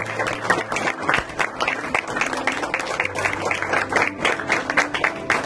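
A small group of people applauding, many hands clapping at once.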